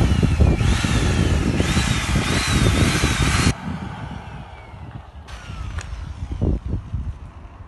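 Handheld electric drill with a paddle mixer stirring facade paint in a bucket. The motor whine rises and falls about once a second as the trigger is worked, and it stops abruptly about three and a half seconds in. Quieter scattered knocks follow.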